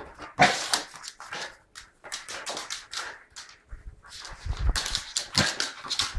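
Belgian Shepherd (Groenendael) puppy romping in play, with quick, irregular scrabbling and clicking of claws on a laminate floor. Heavier thumps come in the second half.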